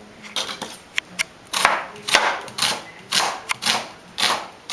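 Kitchen knife cutting through half an onion onto a plastic cutting board: a run of short, sharp chops, about two to three a second.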